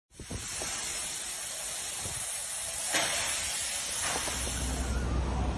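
Swimming-pool water sloshing and splashing over the pool's edges as an earthquake shakes the building, a steady hissing wash of water noise. A brief surge comes about three seconds in, and a low rumble joins near the end.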